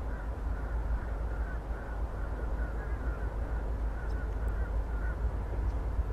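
Birds calling in a long series of short calls, over a steady low rumble.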